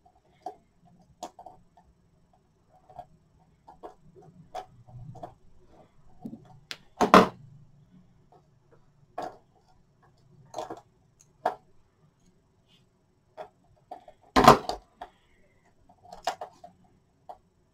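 Small plastic model-kit parts clicking and tapping as they are handled and pressed together, with scattered light clicks and two louder knocks, about seven seconds in and again about fourteen and a half seconds in.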